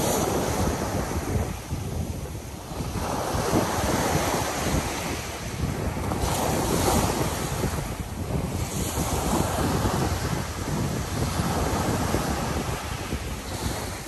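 Small Black Sea waves breaking and washing up a pebble beach, the surf swelling and easing every few seconds. Wind buffets the microphone underneath.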